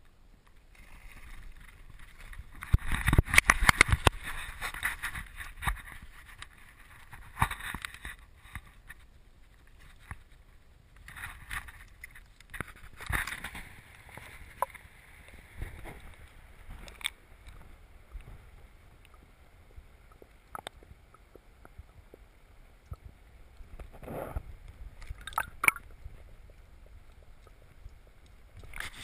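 Water sloshing and gurgling around an action camera dipped underwater while a peacock bass is released by hand, with scattered knocks and clicks. The loudest sloshing comes a few seconds in.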